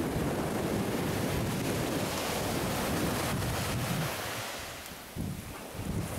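Surf washing up the shore with wind buffeting the microphone; the rush eases off briefly about four seconds in.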